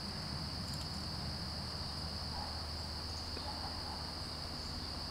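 Steady high-pitched chorus of crickets, with a faint low hum beneath it.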